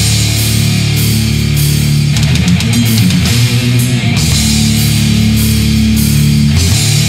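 Old-school death metal playing without vocals: a distorted electric guitar riff over drums. The riff changes for a couple of seconds, from about two seconds in until about four seconds in.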